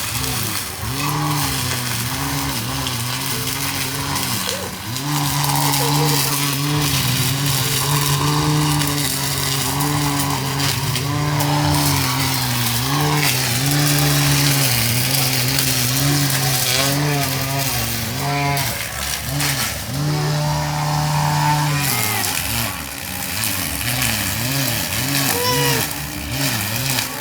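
Homemade electric brush cutter driven by a blender motor, running steadily with a humming whine whose pitch sags and recovers again and again.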